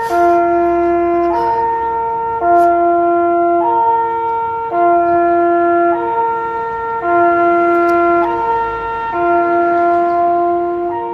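Swiss fire brigade siren sounding the fire alarm signal: two horn tones, a lower and a higher one, alternating about once a second without a break. The sound begins to fade near the end.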